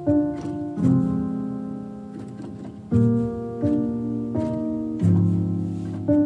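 Background music: a slow, calm piano piece, single notes and chords struck every second or so and left to ring out.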